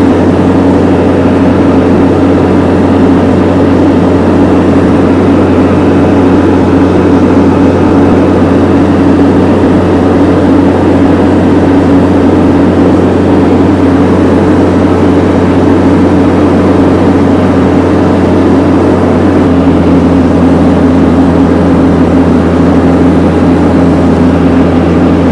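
Heavy engine running steadily at a constant speed, loud and unbroken, with a small change in its low hum about three-quarters of the way through.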